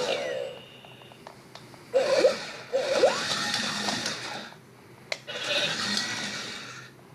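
BB-8 remote-control toy droid whirring in two short spells as its drive motor moves it. Warbling electronic beeps glide up and down in pitch during the first spell, and a sharp click comes between the spells.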